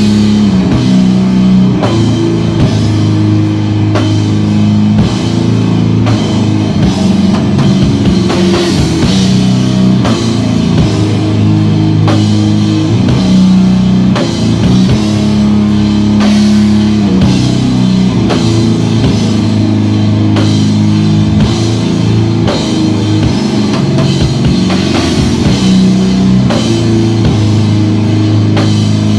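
Live rock band playing: guitar and bass holding long low notes over a steady drum-kit beat.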